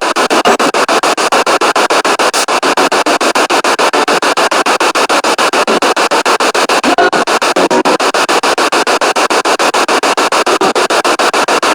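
Spirit box radio sweeping rapidly through the stations: hissing static chopped into quick, even pulses many times a second, with brief snatches of broadcast sound poking through a few times.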